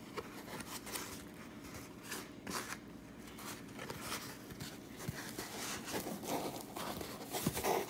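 Fingers working string around a foam pool noodle, pulling it tight in a knot: irregular scratchy rubbing and rustling of string and skin on the foam, with faster rubs near the end.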